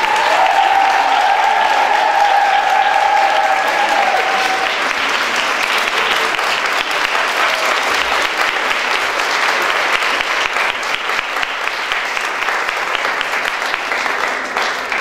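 A group of people clapping steadily in applause. A long held call rings out over the clapping for the first four seconds or so.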